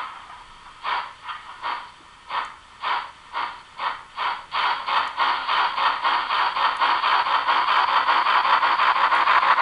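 Steam exhaust chuffs from the DCC sound decoder of a Bachmann OO gauge Peppercorn A1 Pacific model, played through its small onboard speaker. The beats come about two a second at first and quicken steadily as the locomotive gathers speed, until by about halfway they run together into a rapid chuffing.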